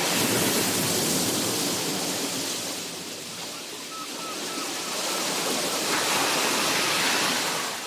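Sea waves washing on the shore, swelling, easing off and building again. A few short, faint gull calls sound in the middle.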